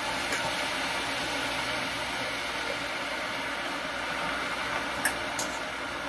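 Steady hiss and sizzle of pork broth ladled into a hot stainless pan of kale. A few sharp clinks, one near the start and two about five seconds in, as the metal ladle knocks the pan.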